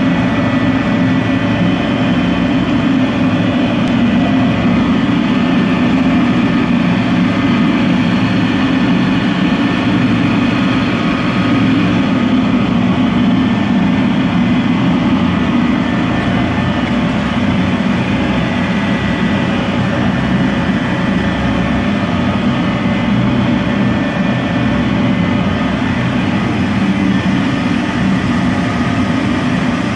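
PVC artificial marble sheet extrusion line running: a loud, steady machine hum with faint steady high whines above it.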